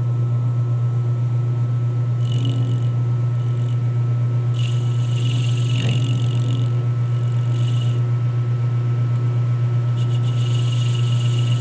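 Metal lathe running with a steady low hum while the tool on the compound rest cuts a 30-degree chamfer on the spinning workpiece. The cutting comes in several stretches of higher hiss: briefly about two seconds in, again from about four and a half to eight seconds, and from about ten seconds on.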